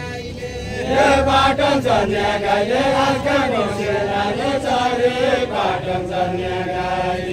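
A group of voices chanting a Deuda folk song together in a slow, drawn-out melody, swelling louder about a second in.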